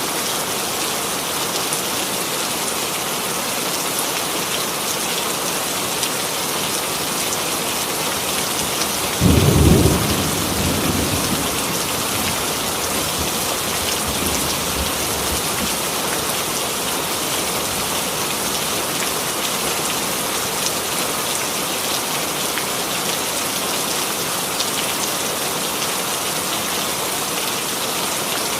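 Steady rain falling, with a sudden clap of thunder about nine seconds in that rumbles away over a couple of seconds.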